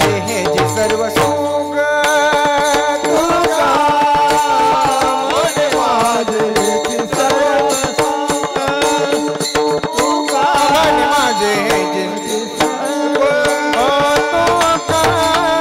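Marathi devotional abhang music: a steady sustained drone with an ornamented melody gliding above it, over continuous percussion strokes.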